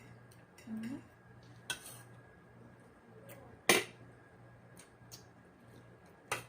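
Utensils and dishes clinking during a meal: a few separate sharp clinks, the loudest about halfway through.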